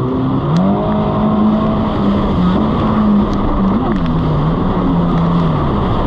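Jet ski engine running at speed, its pitch rising just after the start, holding with small wavers and dropping a little about four seconds in, over a steady rush of water and wind.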